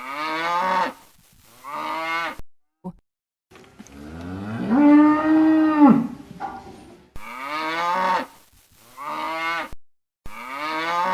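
Cow mooing: a string of short calls, each falling in pitch, with one long, drawn-out moo in the middle that rises and then holds.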